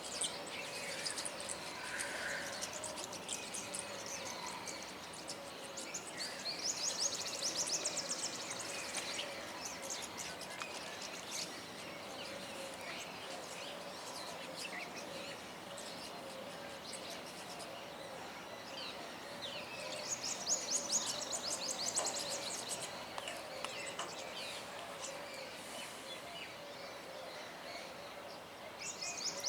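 A group of small songbirds singing and chirping together, with bursts of rapid high trills about a quarter of the way in, about two-thirds in and again near the end, over a steady low hum.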